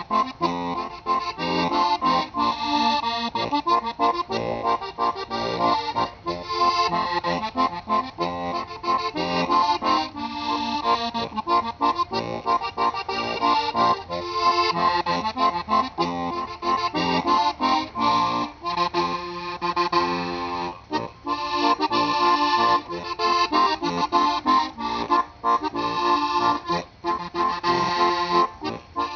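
Steirische Harmonika, a Styrian diatonic button accordion, playing a Ländler, a folk dance tune in three-four time, with bass and chord buttons under the melody.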